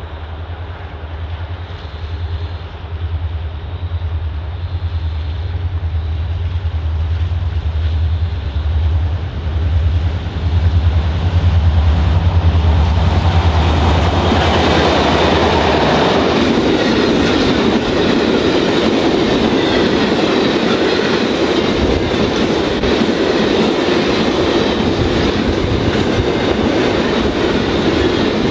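Pair of EMD-powered diesel locomotives approaching and passing at speed, their low pulsing engine drone building to its loudest just before halfway. Then the long train of hopper wagons rumbles by, wheels clicking over the rail joints.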